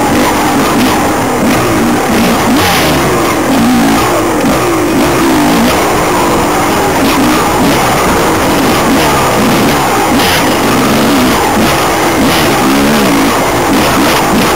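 Enduro motorcycle engine revving up and down over and over as the bike is ridden along a rough, rocky trail, with a steady rush of noise and a few knocks from the bumpy ground.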